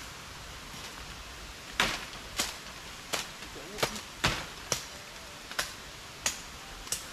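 Machetes cutting through undergrowth while clearing brush: a run of about nine sharp chops, irregularly spaced about half a second to a second apart, starting about two seconds in.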